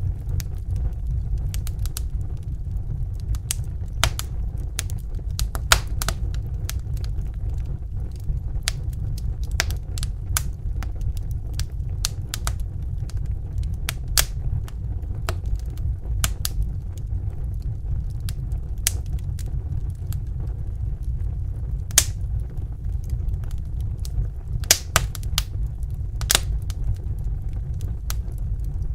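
Wood fire in a fireplace crackling, with irregular sharp pops over a steady low rumble of the flames. A few pops stand out louder, near the middle and in a cluster near the end.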